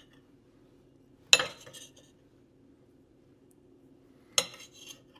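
Butter knife clinking against a plate twice while slicing cooked new potatoes open, each sharp clink followed by a short clatter.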